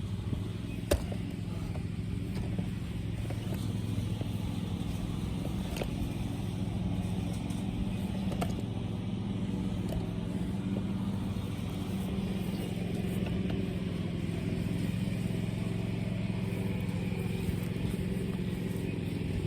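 Gas-powered string trimmer (weed eater) engine running at a steady speed, with a few sharp ticks.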